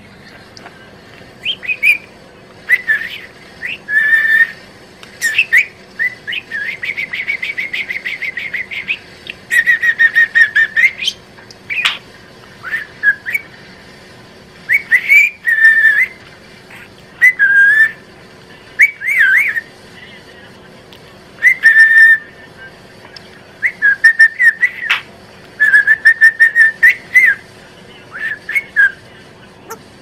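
Budgerigar whistling and chirping in short calls, with a fast buzzy trill for about three seconds near the start.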